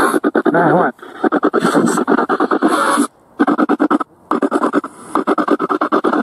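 Spirit box sweeping through radio stations: a rapid, choppy stutter of static and snatches of broadcast sound, several slices a second. A voice fragment heard as "every now and then" comes in the first second, and the sound drops out briefly about one, three and four seconds in.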